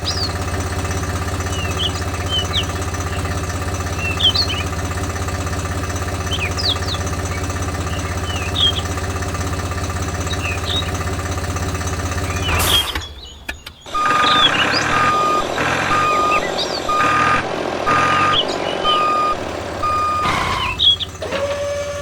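A small motor runs with a steady hum for about the first 13 seconds, with short high chirps over it. After a break, a reversing beeper sounds about once a second over rougher machine running noise.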